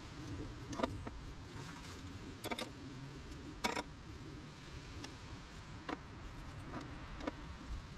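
A metal utensil clicking against a skillet as shredded chicken is picked up and stuffed into a pita bread: a handful of sharp, separate clicks, the loudest near the middle, over a low steady background rumble.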